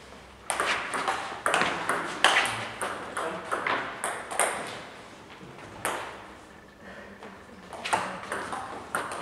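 Table tennis ball clicking off the bats and the table in quick succession. The run of hits stops about halfway, leaving a gap with a single click, and starts again near the end.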